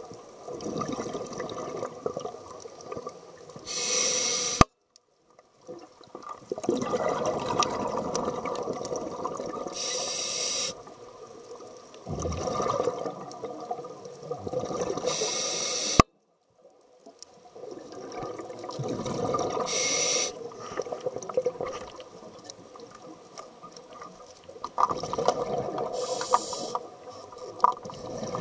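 Scuba diver breathing through a regulator, heard through an underwater camera housing: bubbly exhalations alternating with short hissing inhalations, about one breath every five to six seconds. Twice a sharp click is followed by a second or so of silence.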